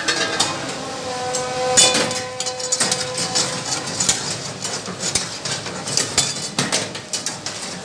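Metal ladle and spatula clanking and scraping against a steel karahi wok as lamb and tomatoes are stirred, in quick irregular knocks. One strike about two seconds in leaves the pan ringing briefly.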